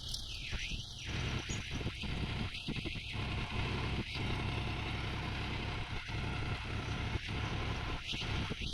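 Heavy diesel engines of earthmoving machinery running steadily at a low hum during mud loading.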